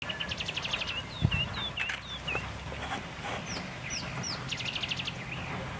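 African wild dogs twittering and chirping in high, bird-like calls: two quick trills of rapid chirps and a run of short, curving squeaks. A brief low thump comes about a second in.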